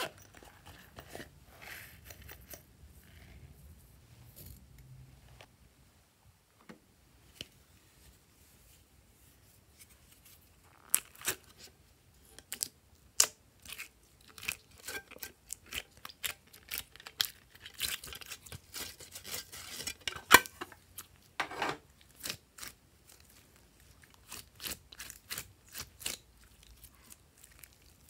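Slime being peeled out of silicone moulds and stretched by hand. It is quiet and sticky for the first seconds, then from about ten seconds in there is a long run of sharp crackles, clicks and pops.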